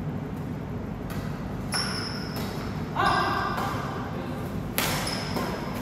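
Badminton rackets striking a shuttlecock in a rally: a series of sharp pings, some with a brief ringing note, spaced about half a second to a couple of seconds apart, the loudest about three seconds in.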